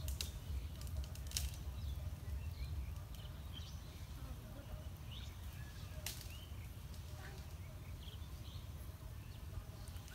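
Outdoor ambience: a low rumble, scattered faint bird chirps, and a few sharp clicks, the clearest about a second and a half and six seconds in.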